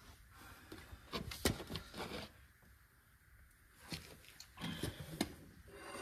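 Scattered faint metallic clicks and knocks of a socket and breaker bar with a steel pipe cheater being worked on a tractor rear wheel's bolt, with a near-silent pause in the middle.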